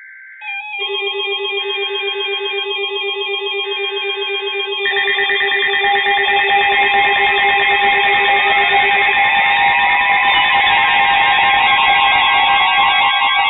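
Several NOAA weather alert radios going off at once, with warbling and beeping electronic alarm tones stacked together, set off by the station's buzzing SAME data bursts announcing a new warning, which repeat three times over the first few seconds. About five seconds in, the sound swells louder and rougher as more alarm tones join in.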